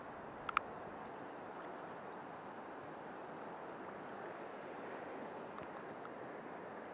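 Steady rush of river water over a shallow riffle, with a brief high double chirp about half a second in.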